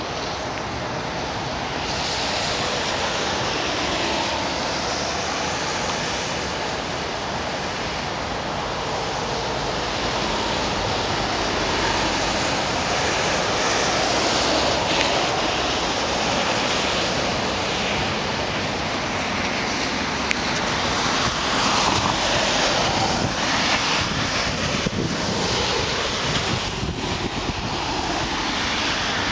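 A steady rushing roar from a Boeing 777-300ER's GE90 jet engines as thrust is applied for the takeoff roll, mixed with heavy rain and wind on the microphone. It grows gradually louder.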